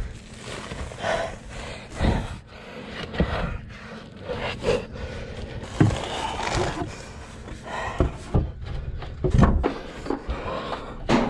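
A person moving about on foot: irregular knocks, thumps and shuffling, with breathing heard now and then.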